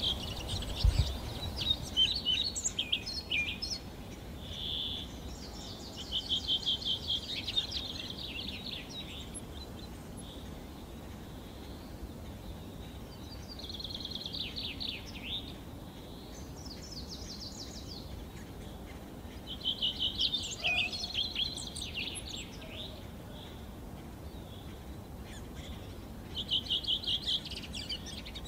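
Wild songbirds singing in the forest: short phrases of rapid high notes that recur every few seconds, over a faint steady background hum of the woods.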